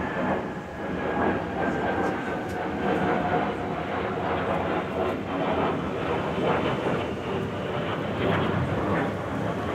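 Jet engines of two military jets passing overhead together: a loud, steady rumbling roar, with a faint whine dropping in pitch in the first second.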